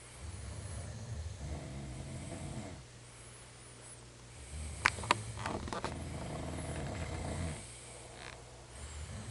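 Snoring: two long, low snores about four and a half seconds apart, with a third starting near the end. A couple of sharp clicks come about five seconds in, at the start of the second snore.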